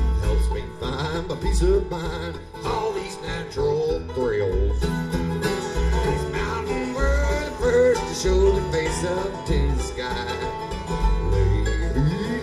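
Bluegrass music with picked acoustic strings over a steady bass beat.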